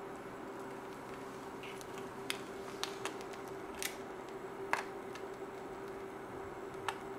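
An egg frying in a pan on an induction cooker: a steady sizzle with about five sharp crackles, over a steady hum from the cooker.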